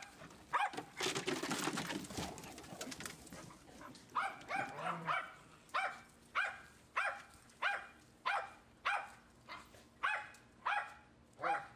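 A dog barking over and over in an even rhythm, about one and a half short barks a second, starting about four seconds in. Before that comes a burst of rustling, scuffling noise.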